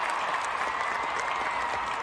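Large concert crowd applauding and cheering in a steady roar of noise.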